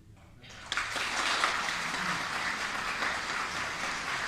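Audience applauding, starting suddenly just under a second in and then holding steady.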